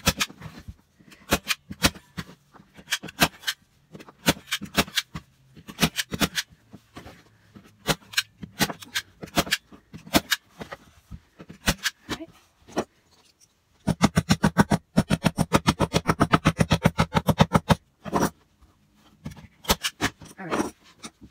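Scissors snipping through fabric, a string of sharp, irregular snips, often in quick pairs, with a few seconds of rapid clicking about two-thirds of the way in.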